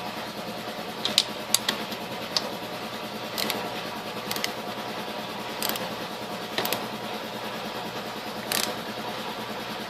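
Scattered metallic clicks and clinks of a wrench working on an air compressor's cylinder-head bolts, about eight over ten seconds, over a steady background hum.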